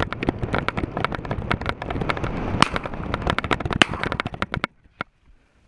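Fast, irregular clattering and knocking with rough wind-like noise from a camera and gear jostled by a running hunter, stopping abruptly about four and a half seconds in.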